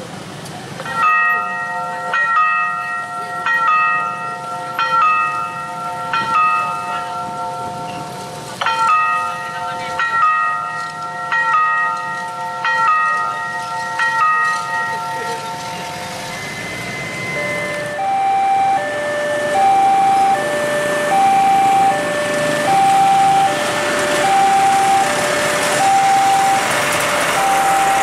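Railway level-crossing warning signals. First an electronic bell chime strikes a chord about once every 1.3 seconds. Then, about 17 seconds in, a two-tone siren alternates between a higher and a lower note about once a second in the crossing's old siren tone, over a rushing noise that grows louder.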